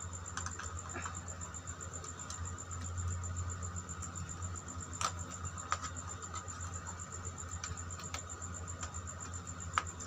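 Light clicks, taps and scrapes of a screwdriver working the terminal screws of a plastic switch-and-socket board, a few sharper clicks standing out near the middle and near the end, over a steady background hum.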